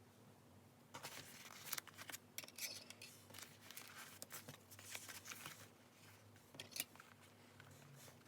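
Paper being handled in a journal, with crisp, irregular rustling and crackling that starts about a second in and a couple of sharp clicks, the loudest near the end.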